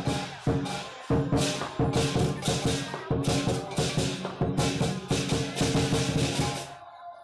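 Background music with a steady percussive beat over sustained pitched notes, which stops near the end.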